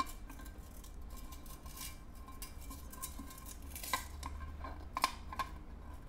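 Light metallic clinks and taps from an aluminium-alloy camping frying pan being handled as its folding wire handles are swung out. There are sharp clinks at the start, about four seconds in and twice around five seconds in, with a faint ring between them.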